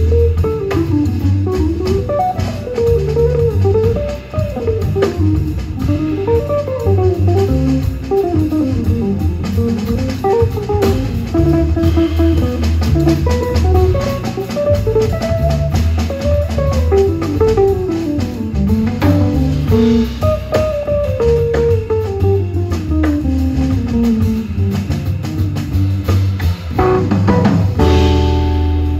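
Live jazz trio: a hollow-body archtop electric guitar plays quick melodic runs that rise and fall, over walking upright bass and a drum kit with cymbals. About 27 seconds in, the band lands on a held chord with a heavy bass note.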